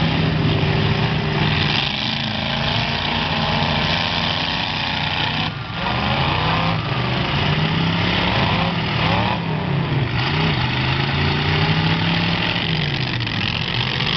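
Demolition derby car engines running and revving, their pitch rising and falling again and again over a dense wash of engine and exhaust noise.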